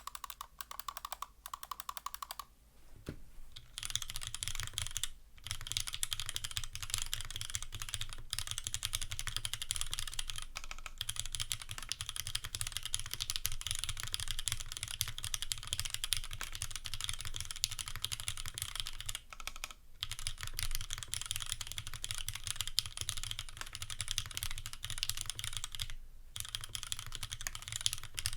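Fast, continuous typing on a Glare TKL custom mechanical keyboard: top-mounted aluminium plate, lubed Cherry retooled Black linear switches and GMK keycaps. A few light keystrokes at first, then a short lull, then steady rapid typing broken by brief pauses every few seconds.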